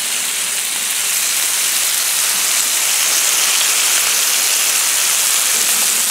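Bacon weaves sizzling steadily in their rendering fat on a hot Camp Chef flat-top griddle: an even, high hiss.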